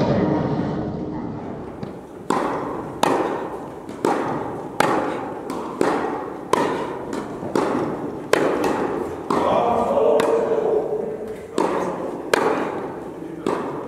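Tennis rally: the ball is struck by racquets and bounces on the court, giving a string of sharp pops about once a second. Each pop echoes in the large hall.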